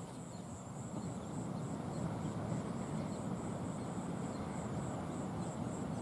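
Outdoor ambience: a steady low rumble with a faint, high, evenly pulsing trill above it.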